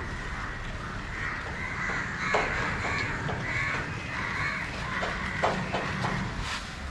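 Birds calling: a run of short repeated calls, several a second, over a steady low hum.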